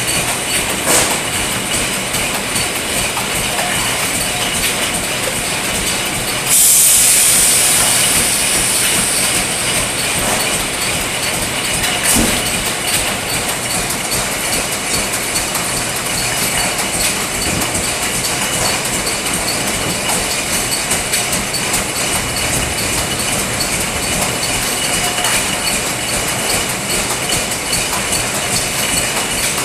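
Estes EST/P24 24-head aerosol can leak tester running: a steady clatter of empty aerosol cans rattling along the conveyor and through the testing heads. About six seconds in, a loud hiss starts and fades away over a few seconds, and a single sharp knock comes a little later.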